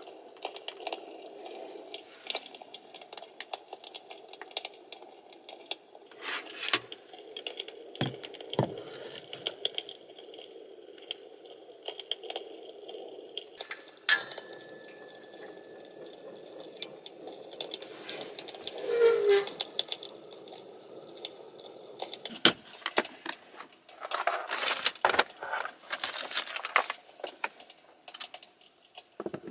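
Objects being handled: an irregular string of clicks, rattles and light clinks, with a few louder knocks.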